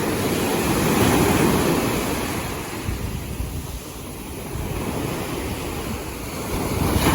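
Sea waves washing onto a shore, the surf swelling, easing off midway and building again near the end, with wind buffeting the microphone.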